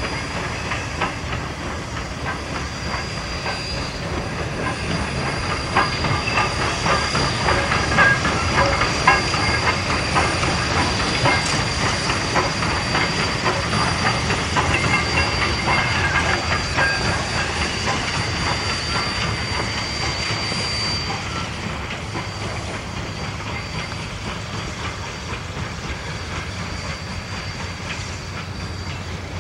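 Baldwin 2-8-2 steam locomotive moving slowly past, with dense clicking and clanking from its wheels and running gear and steam hissing. It grows louder as it passes close, then fades as it moves away.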